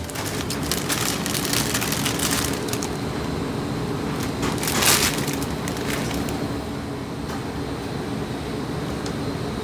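A plastic bag of dry rice vermicelli crinkling while the brittle noodles crackle and snap as they are pushed into a pot of boiling broth. The crackling comes in clusters, loudest about five seconds in, over a steady hum.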